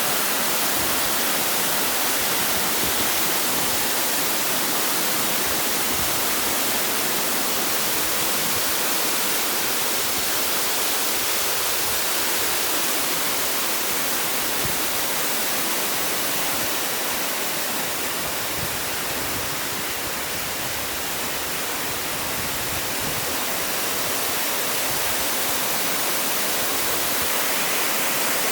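Waterfall pouring: a steady rush of falling water, a little softer for a few seconds past the middle.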